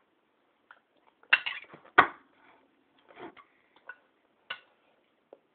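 Spoon knocking and scraping against a bowl: two loud clinks less than a second apart about a second in, then a few lighter taps.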